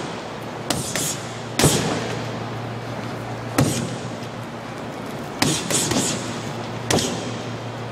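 Boxing gloves punching a freestanding heavy bag: irregular thuds, single punches and a quick three-punch combination about two-thirds through, over a steady low hum.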